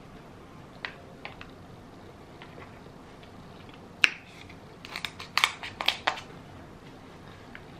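Kitchen shears cutting through a king crab leg's shell: one sharp crack about four seconds in, then a quick run of crunching snips over the next second or so. There are a few faint clicks before the first crack.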